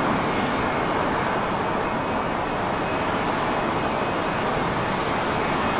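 Twin jet engines of a Turkish Airlines Airbus A320-family airliner at takeoff thrust as it climbs out overhead: a steady rushing noise with a faint high whine.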